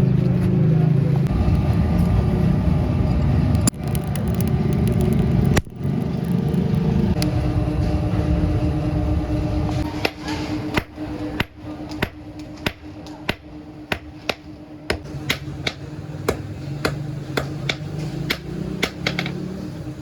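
A dense low rumble for the first several seconds, cut by two brief dropouts, gives way to a steady low hum. Over the hum comes a run of sharp, short hammer blows on steel, about two a second.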